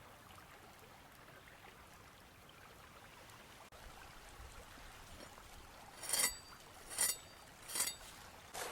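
River water flowing steadily in the background, with four short crackly sounds about a second apart in the last three seconds.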